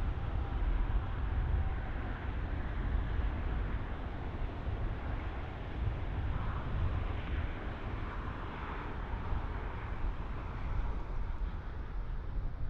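Wind rumbling on the microphone over a steady hiss of distant road traffic.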